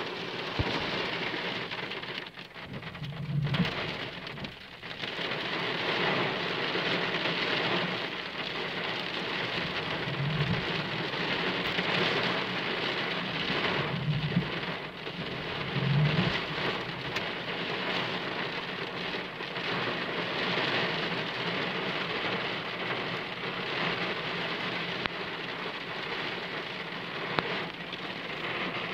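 Heavy rain beating on a car's roof and windscreen, heard from inside the car as a dense, steady hiss.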